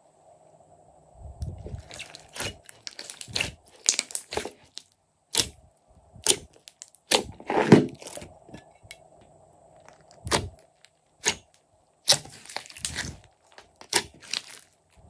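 Glossy slime being stretched, squeezed and pressed by hand, giving irregular sticky crackles, clicks and pops as air pockets in it burst.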